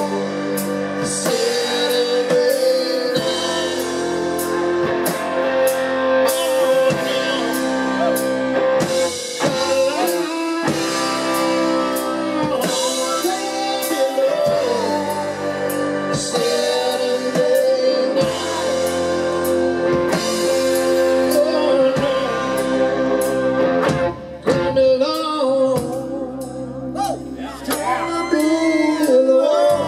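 Live blues-rock band playing: a male lead vocal sings over electric guitar, upright bass and a drum kit.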